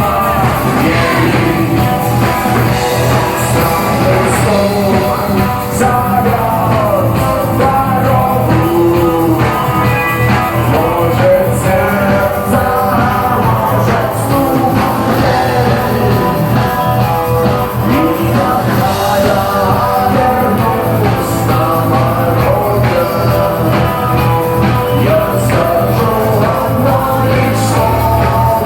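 Rock song played by a band, with a singing voice over guitar, bass and drums at a steady, loud level.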